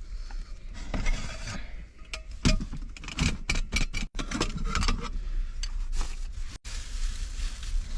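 Cooking prep being handled at close range: irregular scraping, rubbing and clinking of cookware and food packaging, over a steady low rumble of wind.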